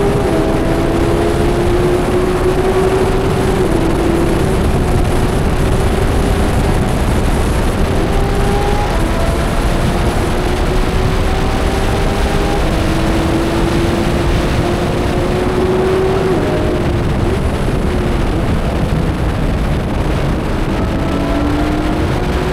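Porsche GT3 RS's flat-six engine under hard running on track, heard from inside the cabin. Its note climbs gradually and breaks at gear changes, over heavy wind and tyre noise.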